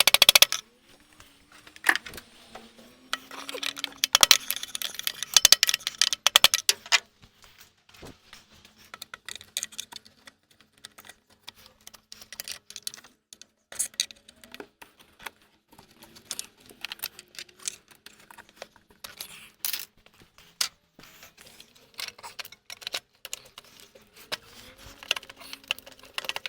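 Metal tools and parts clicking and clinking as a car's starter motor is unbolted and worked free. A denser, louder rattling stretch runs from about three to seven seconds in, then scattered lighter clinks.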